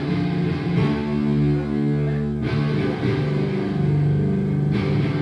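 Electric guitar playing a slow, heavy riff of long held chords that change every second or two.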